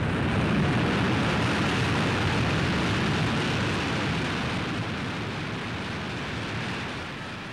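Demolition explosion of the U-boat pens, set off with nearly 70,000 pounds of German bombs: a long, heavy roar that is loudest at first and slowly dies away over several seconds.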